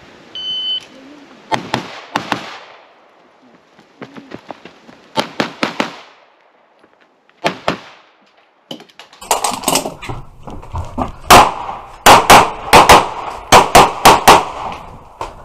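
A short electronic shot-timer beep, then pistol gunfire: a few quick pairs and triples of shots over the first eight seconds, then fast strings of shots from about nine seconds in.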